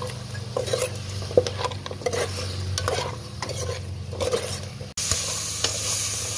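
Metal ladle stirring pork bones frying in oil in a metal pot: a run of scrapes and clacks against the pot over a steady sizzle. About five seconds in there is a sudden break, after which the sizzle is louder and steadier.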